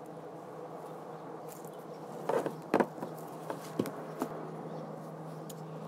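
A steady buzzing hum runs throughout, with a handful of sharp knocks and bumps between about two and four and a half seconds in, the first two the loudest.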